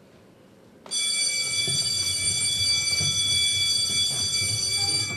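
A single high-pitched tone with bright overtones starts suddenly about a second in, holds steady in pitch for about four seconds and fades near the end, like a whistle or alarm tone played as a stage sound cue. Faint low thumps sit underneath it.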